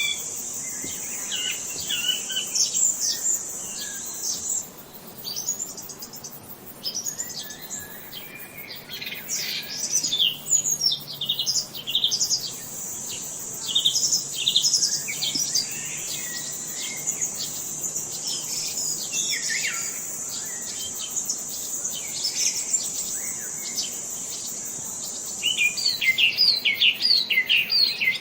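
Several songbirds chirping and calling in quick, repeated notes that sweep down in pitch, with a run of rapid, louder chirps near the end. A steady high insect buzz drones behind them, dropping out for a while early on and stopping shortly before the end.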